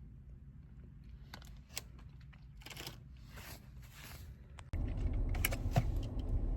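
Faint crunchy chewing with small clicks. About three-quarters of the way through it switches abruptly to a louder, steady low rumble inside a car.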